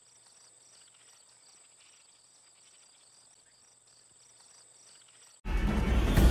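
Faint insect ambience: a steady high whine with a rhythmic chirping about four times a second. Near the end, loud music with heavy drum hits cuts in suddenly.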